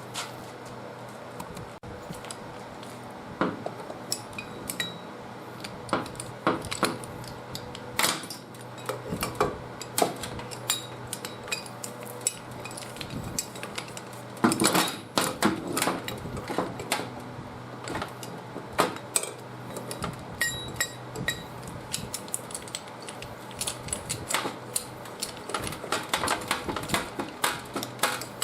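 Metal tools and engine parts clinking and knocking at irregular intervals during hands-on engine disassembly, with busier runs of clatter about halfway through and near the end.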